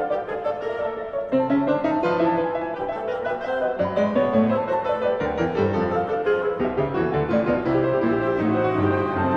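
Background instrumental music led by piano, notes following one another in a slow melody with chords underneath.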